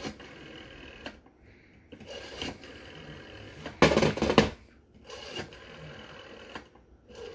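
Handset of a Western Electric Model 500 rotary telephone handled and set down on its cradle, a loud plastic clunk and clatter about four seconds in, with quieter handling noise before and after.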